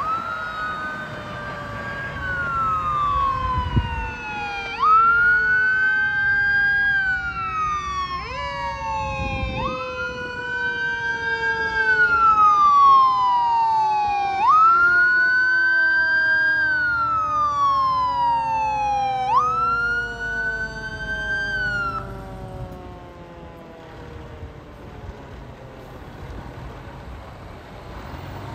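Fire engine's siren wailing, its pitch rising and then gliding slowly down about every five seconds, with a second, lower tone falling slowly beneath it. The siren cuts off about three-quarters of the way through, leaving the truck's engine running as it moves through the intersection.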